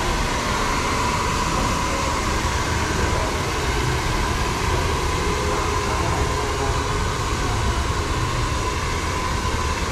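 Hand-held hair dryer blowing steadily: a constant rush of air with a steady whine from its motor.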